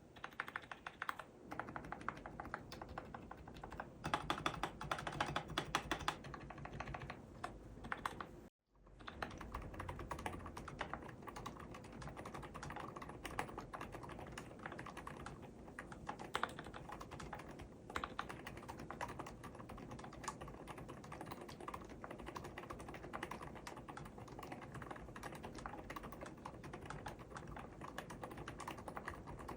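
Steady fast typing on an mStone Groove mechanical keyboard with hand-lubricated GV8 Milky 38 g switches, a dense run of soft, chewy key strokes. The sound drops out completely for a moment about eight and a half seconds in, then the typing resumes.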